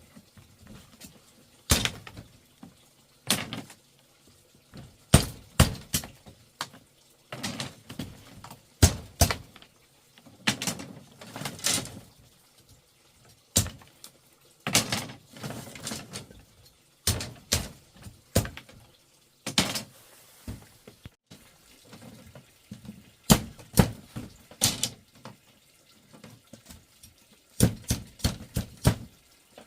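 Irregular knocks and clicks, several a second in clusters with short pauses between, some followed by brief noisy rushes.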